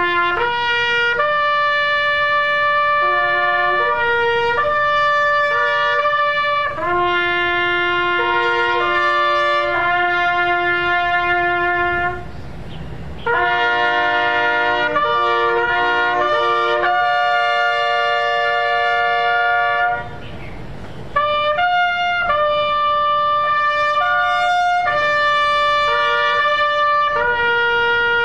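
A trumpet sounding a slow ceremonial bugle call in long held notes, stepping between a few bugle-call pitches and stopping twice briefly for breath.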